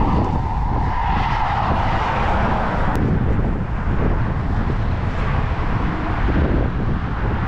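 Road traffic on the highway bridge alongside: a steady rush of tyres and engines, with one vehicle's tyre hum fading away about three seconds in, over a heavy low rumble.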